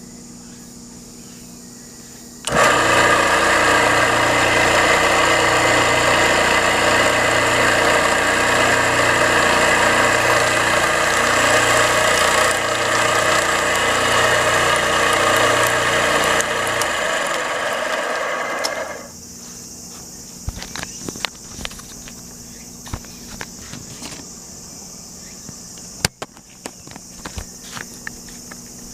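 A Terada electric sprayer pump, just restored after its rust-seized moving parts were cleaned, oiled and greased, switches on about two and a half seconds in. It runs steadily with a regular pulsing beat under a loud hiss, then winds down and stops near two-thirds of the way through. Scattered light clicks and taps follow.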